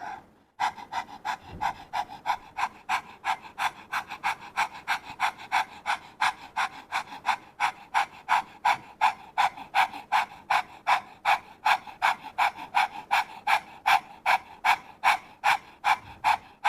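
A woman's rapid rhythmic panting, about three short breaths a second, done as the yoga 'rabbit breathing' exercise with the tongue pressed inside the lower lip. It starts about half a second in and keeps an even pace.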